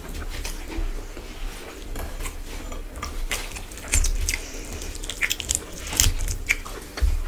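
Close-miked chewing and wet mouth sounds of someone eating rice and curry by hand. Scattered crackles and wet tearing come as a spicy fried whole chicken is pulled apart with the fingers, with low thuds, the loudest about four and six seconds in.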